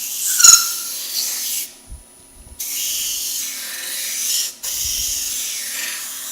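Wood being sanded against a spinning, chuck-mounted aluminium sanding disc with Velcro-backed abrasive: a steady rasping hiss that stops for about a second near the start and again briefly past the middle as the piece is lifted off.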